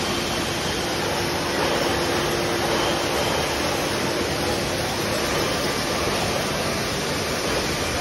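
Steady machine noise of a brewery bottling line, with its machines and crate conveyors running: an even din with a faint steady hum through the first half.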